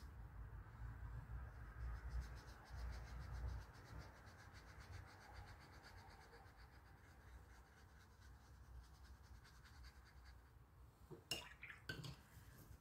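Faint scratching and rubbing of a paintbrush mixing phthalo blue red shade watercolour paint, with two light clicks near the end.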